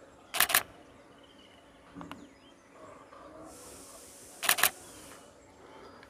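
Canon DSLR shutter firing in two short bursts of two or three rapid clicks, about half a second in and again about four and a half seconds in.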